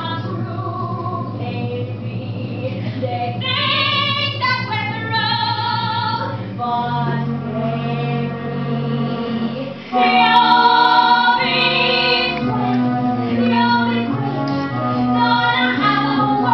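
A woman singing a Broadway show tune over instrumental accompaniment, with steady low notes beneath the voice and a louder entry about ten seconds in.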